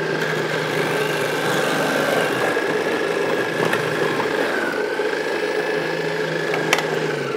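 Ninja Foodi Power Blender motor running steadily with a high whine, spinning the shredding disc of its food-processor attachment to shred celery. The pitch sags briefly a little after the middle, and there is a single click just before the motor stops at the end.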